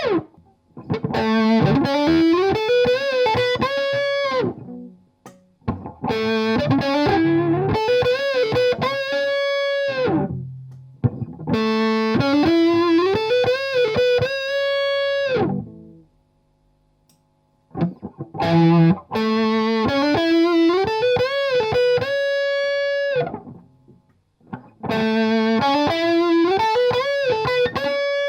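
Bad Cat Love Pup electric guitar playing the same short rising lick five times, each ending on a held note, with brief pauses between the passes.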